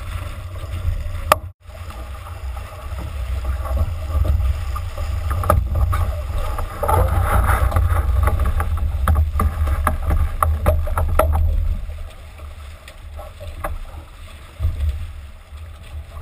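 Wind buffeting the microphone of a camera mounted on a J/80 sailboat, over water rushing and splashing along the heeled hull under sail. It cuts out briefly about a second and a half in and eases off to a quieter wash after about twelve seconds.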